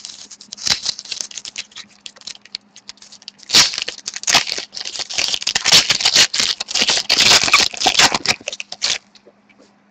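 Trading cards and their packaging being handled: light rustling at first, then from about three and a half seconds in a dense stretch of crinkling and scraping for about five seconds, which stops shortly before the end.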